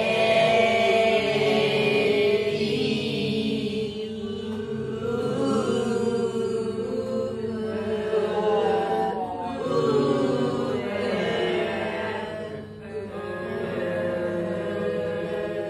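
Several voices drawing out vowel sounds together in long, sliding chant-like tones: a choral drill of English vowel sounds.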